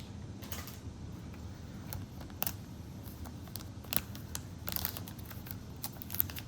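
Scattered small clicks and light scrapes from a Zippo lighter's metal case and insert being handled and worked on by hand.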